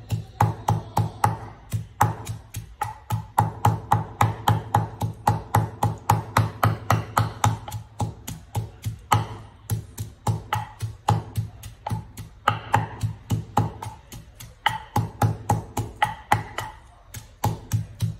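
Wooden pestle pounding in a wooden mortar, a steady run of dull wooden knocks about four a second with a few brief pauses, mashing a moist spice paste.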